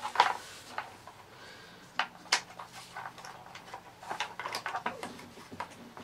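Scattered clicks, taps and rattles of hard plastic as a vacuum cleaner's switch and wiring are pushed and tucked into its plastic handle housing, with a sharper click just after the start and another about two seconds in.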